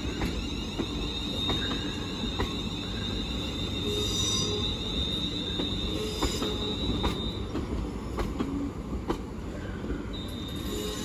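Two coupled Class 350 Siemens Desiro electric multiple units rolling slowly past, wheels squealing on the rails in one steady high-pitched tone that breaks off about seven seconds in and comes back near the end. Under it runs a low rumble with irregular sharp clicks of wheels over rail joints.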